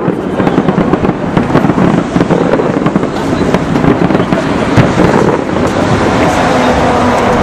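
Aerial fireworks shells bursting in a rapid, continuous run of bangs and crackles, one on top of another.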